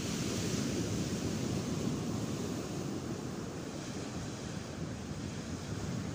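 Sea surf breaking and washing up a sand-and-shingle beach, a wave swelling louder about a second in and then easing, with wind buffeting the microphone.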